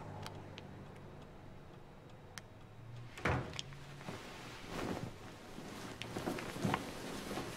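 Bedclothes rustling and swishing as someone climbs into bed and pulls the covers up, with a sharp thump about three seconds in, over a faint low hum.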